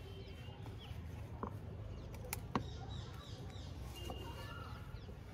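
Pruning shears snipping at an eggplant stem: a few sharp clicks, the loudest about two and a half seconds in. Faint birds chirp in the background.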